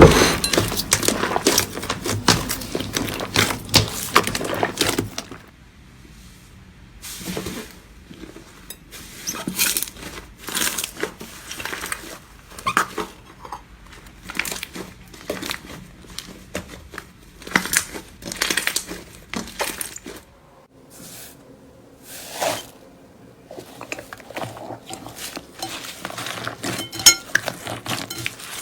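Slime being squeezed and poked by hand, making a run of sticky clicks and pops. They come thick and fast for about the first five seconds, then turn sparse and scattered.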